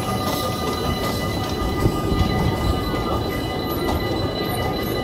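A small steam locomotive and its passenger carriages rolling past close by, with the wheels rumbling steadily on the rails.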